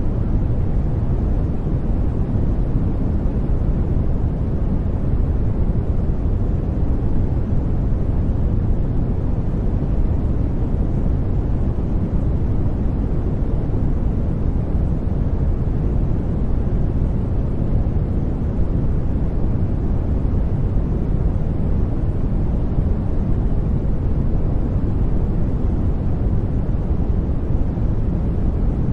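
Steady noise track used as a sleep background, unchanging throughout, deep-sounding with most of its energy low and little treble.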